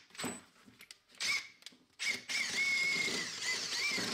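Power drill boring through the steel of an old axe head to drill out its eye. It runs in short bursts at first, then steadily from about halfway, with a whine that rises and dips as the bit cuts.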